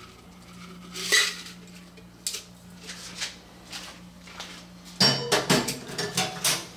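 Metal cocktail shaker tins and strainer clinking and clattering as they are handled on a bar counter. There is one sharp clink about a second in, a few light knocks, then a quick run of clatters near the end.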